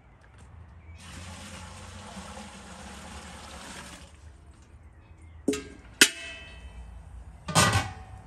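Water poured from an enamel bucket into a large metal cooking pot, a steady splashing pour lasting about three seconds. Then come three sharp metallic clanks with a ringing tail, the last one the loudest, near the end.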